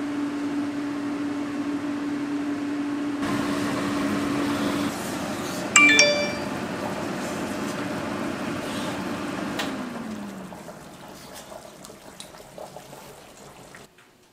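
Kitchen range hood fan running with a steady hum over a rushing noise, with a sharp metal clang and a short ring about six seconds in. About ten seconds in the hum slides down and the noise drops as the fan winds down.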